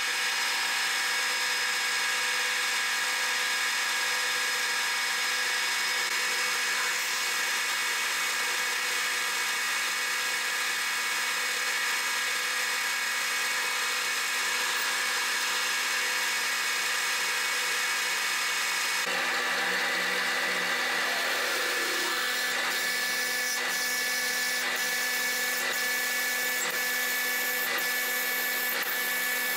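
Metal lathe running with its spindle turning an aluminium block while a drill held in the tailstock chuck cuts into it: a steady whine made of several fixed tones. The sound shifts slightly about two-thirds of the way through, and in the last several seconds faint clicks come roughly once a second.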